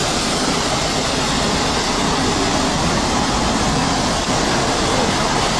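Steady rushing hiss of water jets spraying a MAN truck as it drives through a truck-wash frame, with the truck's diesel engine running underneath.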